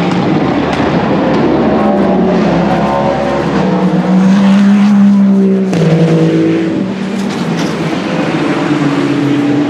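Hypercar-class endurance prototype race cars at speed, engines running at high revs. One passes close about halfway through, its engine note dropping sharply as it goes by, with another car's engine rising after it.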